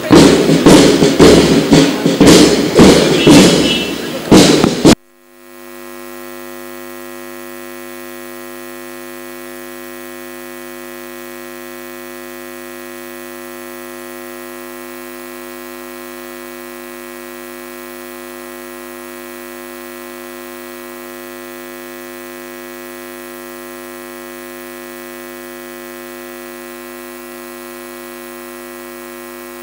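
Loud music with a steady beat cuts off abruptly about five seconds in. It leaves a steady electrical mains hum made of several held tones, the buzz of the audio line with no program sound on it.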